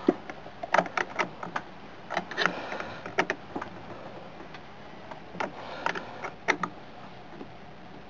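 Metal wrench clicking and clinking on the clamp bolt of a chrome battery terminal as the bolt is tightened, in irregular short clusters of clicks.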